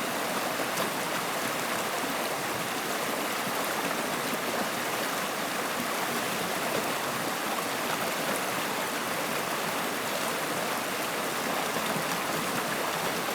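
Running water flowing steadily: an even, unbroken rush.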